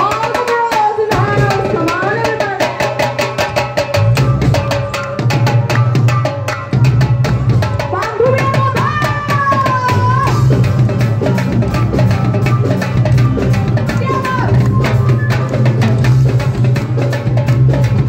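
Live rock band playing: a drum kit keeps a steady beat under bass, electric guitar and keyboard, with a melody line gliding over the top.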